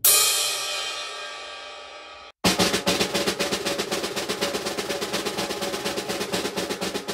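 Drum sound effect: a drum-and-cymbal hit rings out and dies away over about two seconds, then a fast snare drum roll runs for about five seconds.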